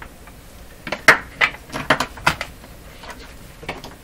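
Steel radio chassis being turned over and set down on a workbench: a quick run of sharp knocks and clicks about a second in, then two more near the end.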